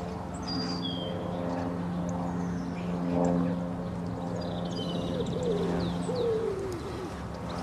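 Outdoor birdsong: short high chirps and whistles, with a run of low cooing calls in the second half, over a steady low hum.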